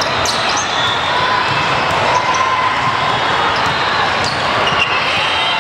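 Indoor volleyball rally amid the din of a crowded multi-court hall: sharp slaps of volleyballs being struck and short squeaks of athletic shoes on the court, over a steady wash of many voices.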